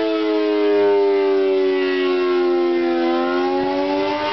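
Outdoor warning siren wailing during a severe storm, its pitch sinking slowly and then rising again about three seconds in, over the hiss of wind and rain.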